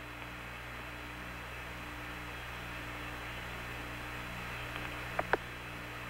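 Open Apollo 11 air-to-ground radio channel between transmissions: a steady hiss with a low hum. Two brief clicks come about five seconds in.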